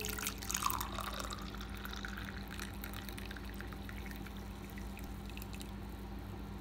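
Hot tea poured from an enamel pot into a glass mug. A splashing stream is loudest in the first second or so, then settles into trickling and fizzing that thins out near the end.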